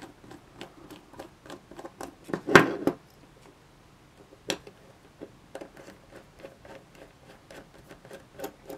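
Small screwdriver ticking and scraping in the screw heads of a small DC motor as its screws are undone to free it from its gearbox, with a louder clatter about two and a half seconds in and a single sharp click about four and a half seconds in.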